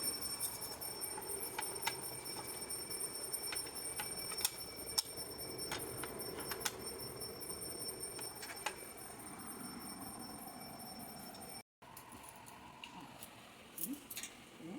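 Scattered light clicks and taps over a steady high-pitched electronic whine, with a brief cut to silence about three-quarters of the way through.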